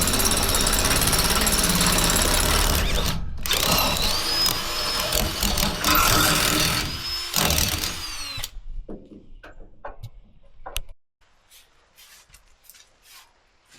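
Power tool running loudly, with a short break about three seconds in and a whine that shifts in pitch while it works. It stops about eight seconds in, leaving faint taps and clicks.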